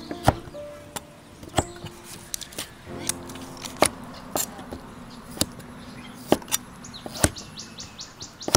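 Knife chopping on a cutting board in single sharp strokes, roughly one a second and unevenly spaced. From about seven seconds in, a high, rapid chirping joins in.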